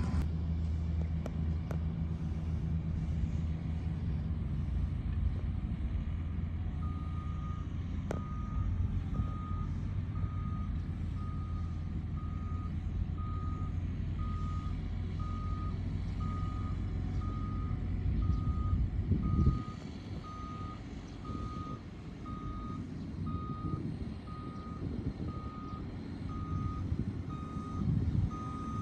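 A reversing alarm beeping steadily about once a second, starting about seven seconds in, over the low rumble of a heavy diesel engine that drops off about two-thirds of the way through; typical of a dump truck backing up to the excavator to be loaded.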